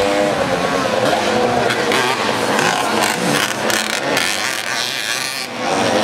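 Several veteran motorcycles with small two-stroke Fichtel & Sachs engines revving hard as they race past on a dirt track. Their engine notes overlap and keep rising and falling in pitch.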